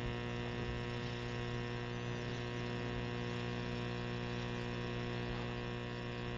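Steady electrical mains hum, a constant low buzz made of several steady tones with no change in level.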